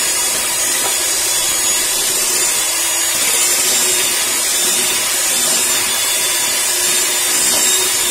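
Bajaj Majesty HM01 electric hand mixer running steadily with a high motor whine, its beaters creaming butter and icing sugar in a glass bowl.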